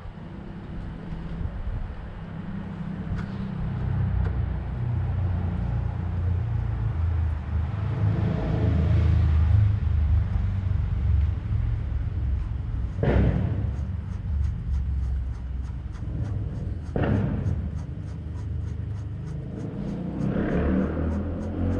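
Low, uneven rumble throughout, with two sharp knocks about four seconds apart past the middle, from work on the car's gearbox and wiring. A faint, even ticking runs through the second half.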